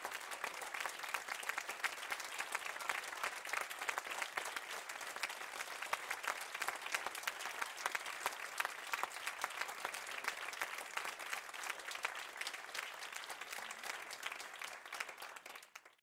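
Audience applauding steadily with many hands clapping; the applause fades out quickly at the very end.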